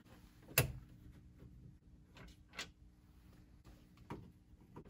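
A sharp click about half a second in, then a few faint clicks and taps: a screwdriver and hands working the screws of a truck's dashboard trim.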